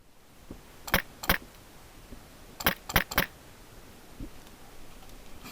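Five short, sharp knocks: two about a second in, then three in quick succession around three seconds in, over a quiet background.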